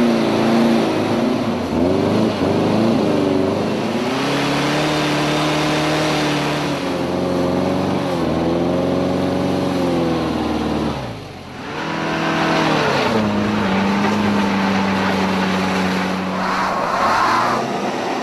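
Car engine revved hard over and over, its pitch rising and falling, as the wheels spin without traction in mud. About eleven seconds in the revs drop away briefly, then climb again.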